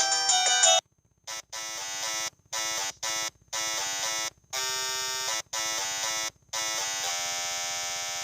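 Samsung SGH-T410 mobile phone playing its built-in polyphonic ringtones. One tune cuts off under a second in, and after a short silence another begins: a synthesised melody in short phrases with brief gaps between them.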